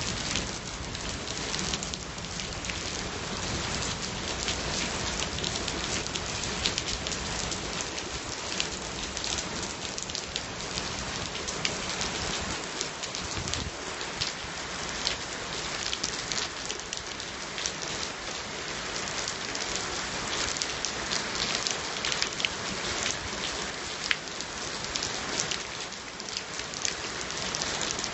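Steady rain falling, with many sharp, close drop impacts over an even hiss.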